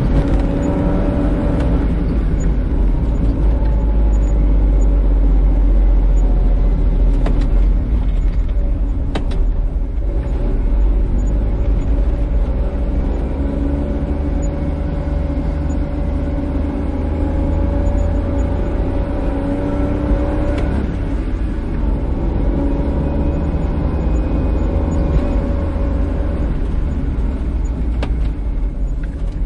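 Car driving at road speed: steady low rumble of tyres and engine. The engine's hum drifts gently up and down in pitch.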